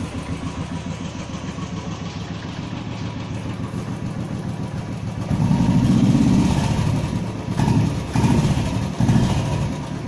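Royal Enfield single-cylinder motorcycle engine idling with its steady thump, then revved: one longer rev about halfway through, then two short throttle blips.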